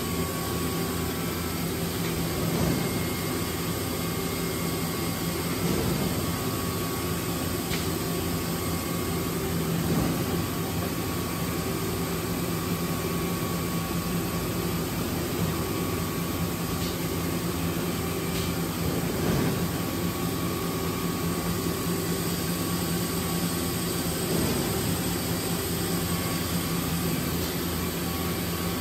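Steady industrial machine drone: a constant low hum over a rushing noise, with a few faint knocks.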